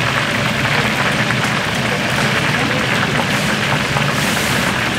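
Hot oil sizzling steadily in a deep fryer, a dense crackling hiss over a low steady hum.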